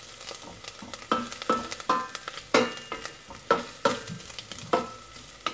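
A wooden spoon stirs and scrapes around a stainless steel pot of hot oil with mustard seeds, chili, garlic and ginger, which sizzle on just off the heat. The spoon knocks against the pot about twice a second, and the pot rings briefly after some of the knocks.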